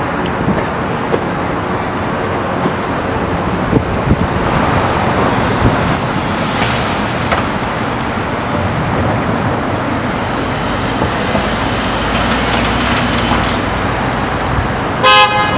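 City street traffic: a steady wash of cars driving through an intersection, with a short car horn honk near the end.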